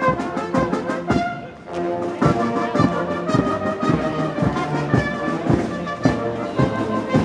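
Marching band of brass instruments playing a march over a steady beat, with a brief lull about a second and a half in before the band comes back in.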